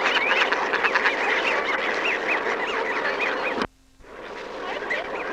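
A flock of waterfowl calling all at once, many short rising-and-falling honks and quacks overlapping, as the birds crowd in for bread. The sound cuts off abruptly about two-thirds of the way through, leaving a brief low hum, and the calling then picks up again.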